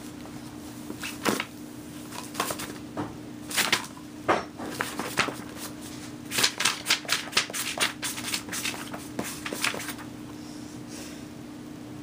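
An irregular run of sharp clicks and knocks, coming quicker and closer together from about six seconds in and stopping near the end, over a steady low hum.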